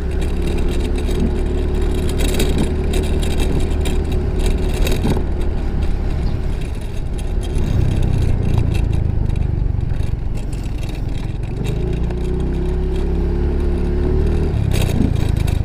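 Yamaha Mio i 125 scooter under way, its small single-cylinder engine droning steadily over a low rumble. The engine note eases off a little before halfway and picks up again later.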